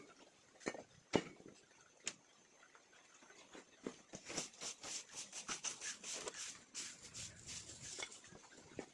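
Chickens pecking and scratching in a coop: a few sharp taps, then from about four seconds in a dense run of quick taps and scratches.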